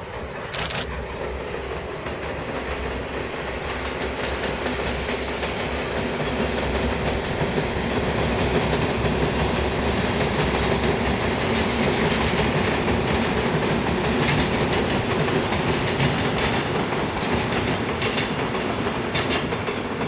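Container freight train hauled by an EF64 electric locomotive rolling across a bridge: a steady rumble of wheels on rails with occasional clacks over the rail joints, growing louder over the first several seconds as the wagons come nearer, then holding.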